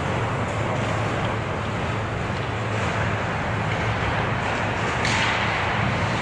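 Ice hockey rink ambience during a game: a steady low hum under a constant hiss, with a louder hissing scrape about five seconds in.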